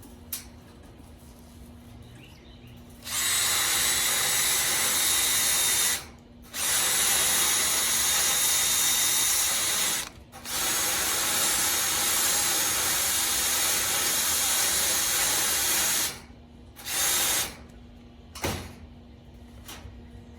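Electric arc welding on steel: a steady crackling hiss of the arc in three long runs of several seconds each and one short tack, each starting and stopping abruptly as the trigger is pulled and released.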